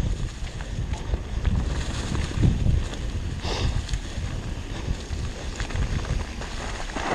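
Wind noise on the microphone and the rumble of mountain bike tyres rolling over a leaf-strewn dirt trail, with frequent small knocks from bumps. There is a brief louder hiss about three and a half seconds in.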